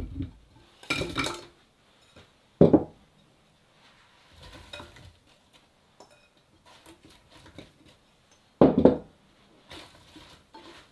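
Kitchenware being handled: dishes, pots and utensils clinking and being set down, with a few sharp knocks, the loudest about 3 and 9 seconds in.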